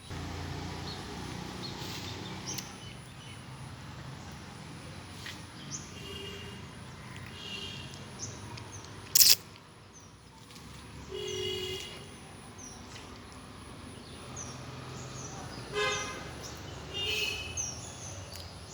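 Several short horn toots over outdoor street noise, with small birds chirping and one sharp loud click a little after halfway.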